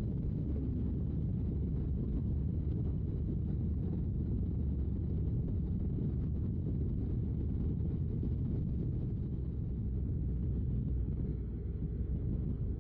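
Honda NC750X DCT motorcycle's parallel-twin engine running at a steady cruise, mixed with wind rush on the rider's microphone. The sound holds level throughout, dipping slightly near the end.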